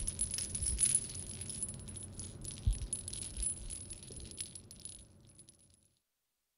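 Clicking, rattling sound texture over a thin, high steady tone, fading out over about five seconds into complete silence.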